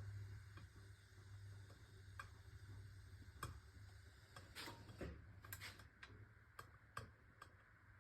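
Near silence with faint, irregular light clicks and taps as cooked ziti noodles are laid into a baking pan, over a low hum that fades out about halfway.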